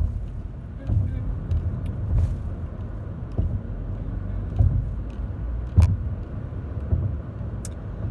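Car cabin noise while driving: a steady low rumble with a low thump about once a second.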